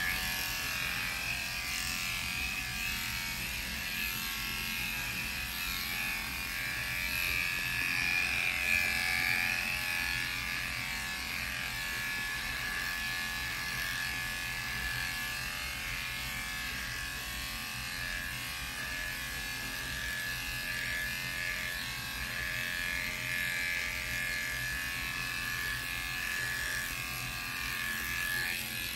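Electric dog-grooming clippers running steadily with a constant hum and a thin high whine, the blades cutting through a curly coat.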